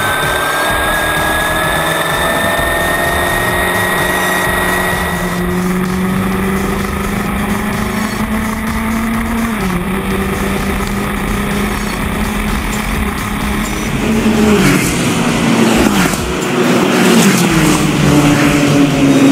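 Formula Renault single-seater's four-cylinder engine running hard at speed, its note climbing slowly, with a gear change about ten seconds in. Toward the end it gets louder, going through several quick gear changes, each a short drop in pitch followed by a climb.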